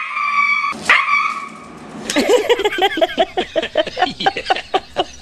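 Dogs barking and yelping in high, sharp calls for the first second and a half. About two seconds in, a fast burst of a woman's laughter takes over.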